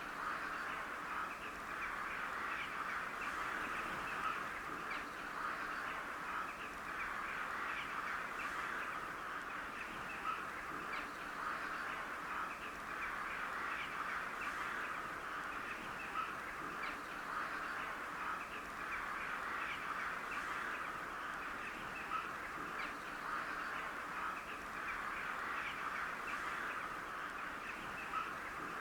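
A large flock of crows calling all at once: a steady, dense chatter of many overlapping caws that does not let up.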